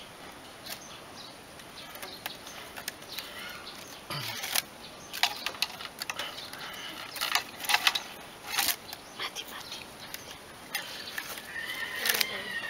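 Plastic weaving strip being pulled and threaded between the bamboo stakes of a stool frame: scattered sharp rustling clicks and scrapes, thickest in the middle.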